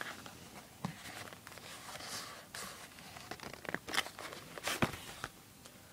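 Handling of an iPad 2 case: scattered clicks and taps with brief rustling, as the cover is folded and the case and its packaging are moved about.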